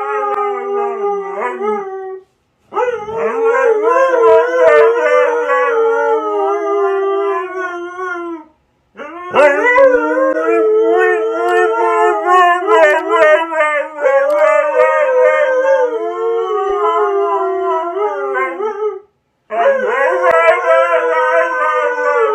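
Husky howling and "talking" in long, warbling, wavering calls, four long stretches broken by brief pauses.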